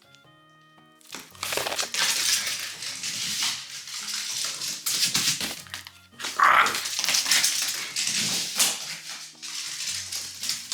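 Background music with a simple melody, over repeated rustling and scuffling noises that start about a second in.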